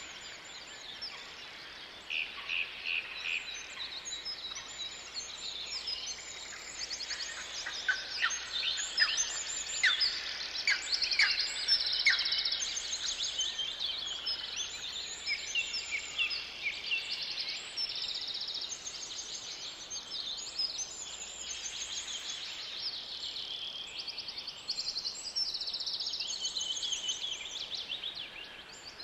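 Several songbirds singing together in a forest, a dense chorus of repeated chirps and fast trills, with the loudest sharp chirps about a third of the way through.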